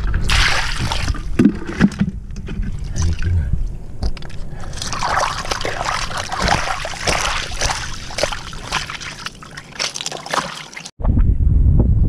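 Shallow seawater sloshing and trickling over sand and pebbles right at the microphone, with many small splashes and crackles. About eleven seconds in this cuts off suddenly and is replaced by wind buffeting the microphone.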